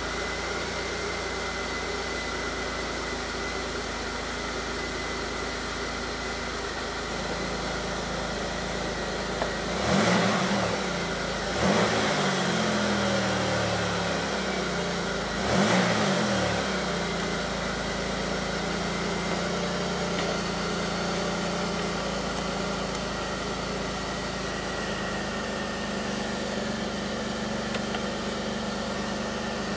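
A 2002 Pontiac Grand Prix's 3800 V6 engine idling, revved briefly three times near the middle and then settling back to idle. The owner reports the idle as rough and the engine as bogging.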